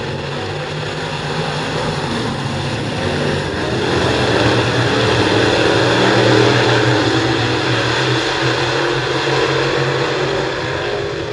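A pack of dirt late model race cars running at speed, their V8 engines droning together. The sound swells to its loudest a little past the middle as the pack comes closest, then eases off.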